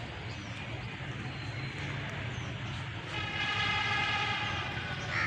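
HGMU-30 diesel locomotive approaching with a steady low rumble. About three seconds in it sounds its horn in one blast of about two seconds.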